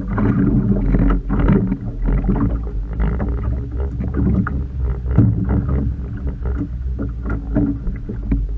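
Small fishing boat on the water: a steady low rumble with irregular knocks and splashes throughout.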